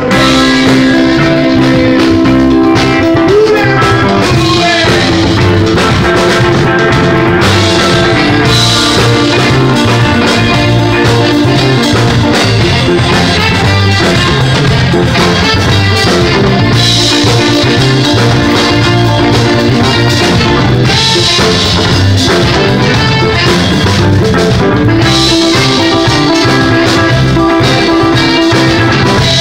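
Live band playing: drum kit, electric guitar and saxophone, loud and continuous.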